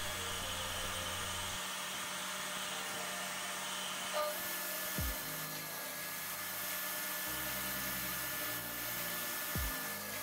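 Steady rushing noise of a running machine, with two soft thumps as wood pieces are shifted on the table-saw sled.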